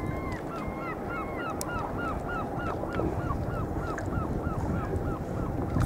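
A bird calling in a fast, even series of short piping notes, about three a second, over steady wind and water noise.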